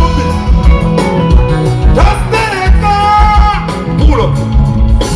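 Loud music with a steady bass beat and a singing voice.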